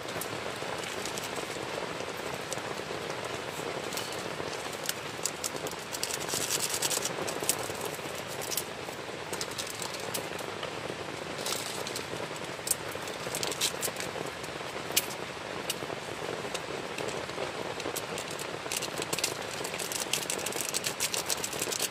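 Heavy rain falling on a tent: a steady hiss with many irregular sharp drop hits, thickest in a few spells.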